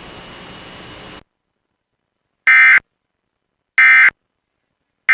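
Emergency Alert System SAME digital data bursts: short, loud, raspy buzzing squawks spaced about a second apart, the end-of-message code that closes the alert. They follow a faint static hiss that cuts off just over a second in.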